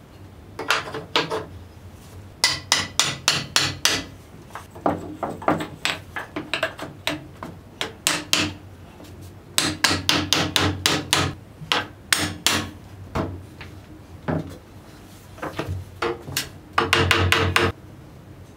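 Hammer blows on wood in quick runs of several a second with short pauses between, the densest run near the end: wooden parts being knocked together on their dowel joints.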